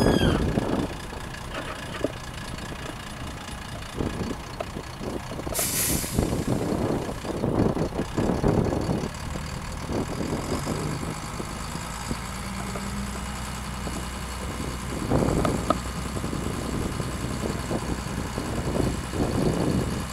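Volvo A25C articulated dump truck's diesel engine idling, with a short hiss of air about six seconds in. In the second half the hydraulic hoist raises the dump body.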